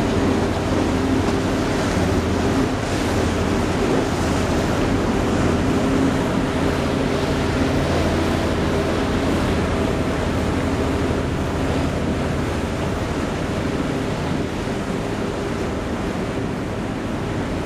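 Steady low engine drone of the boat carrying the microphone, with water wash and wind buffeting the microphone.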